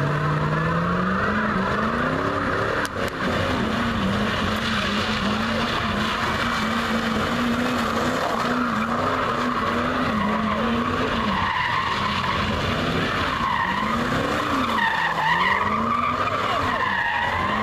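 A car doing donuts, its engine revved up and held high while the tyres squeal without letup. The revs dip and climb again near the end.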